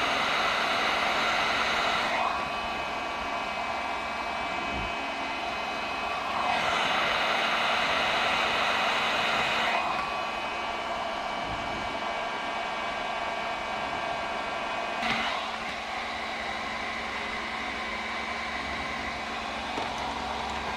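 Electric hot-air blower running steadily with a whining hum, heating vinyl gun-skin film so it softens and conforms. It is louder for the first two seconds and again for a few seconds in the middle, and there is a short click about three-quarters of the way through.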